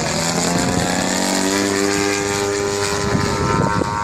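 Radio-controlled Yak 54 model plane's 120 cc engine and propeller buzzing as it flies overhead. The pitch drops over the first second or so, then holds steady.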